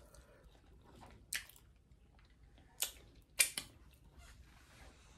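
A person chewing and eating a Cajun-seasoned chicken drumstick by hand, quietly, with a few short, sharp smacks of mouth and fingers, the loudest around three and three and a half seconds in.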